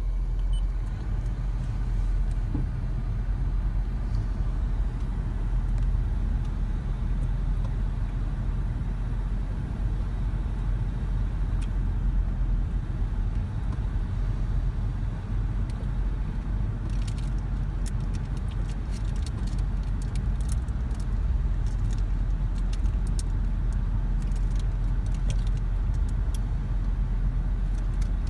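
Car idling, heard from inside the cabin as a steady low rumble. Scattered light clicks come in over the second half.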